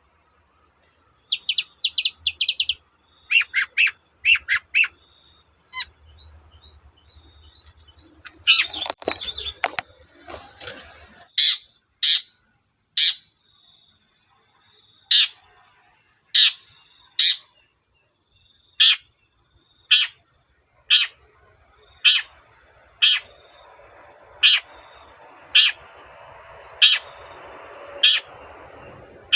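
Long-tailed shrike (cendet) singing: quick runs of sharp, rapid notes, then a harsh chattering burst, then a long series of single sharp calls at about one a second. A faint steady high tone sits underneath.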